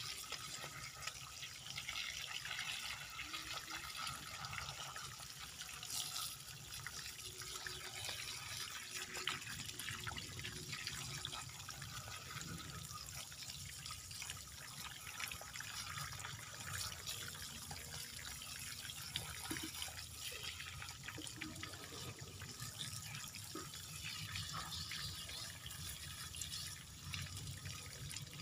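Water running steadily from a garden hose and splashing over a bonsai and its rock, with a few faint clicks.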